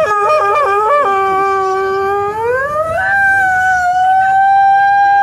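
A performer's exaggerated theatrical wail of weeping: a warbling cry that breaks up and down in pitch for about the first second, then a long held note that slides up about two and a half seconds in and holds at the higher pitch.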